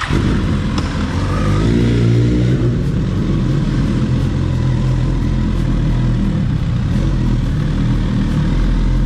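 Suzuki GSX-R1000 inline-four motorcycle engine running just after starting, with a brief blip of revs about two seconds in before settling to a steady idle.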